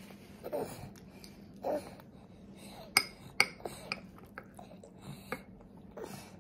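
A metal toddler fork clinking and scraping against a bowl as a small child scoops up his food: two sharper clinks about three seconds in, then a few lighter taps.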